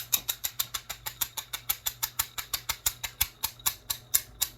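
Plastic fidget toy worked in a rapid, even series of sharp clicks, about five or six a second, that stop near the end.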